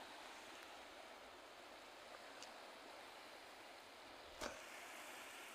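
Near silence: a faint steady hiss, with a brief sharp click about four and a half seconds in.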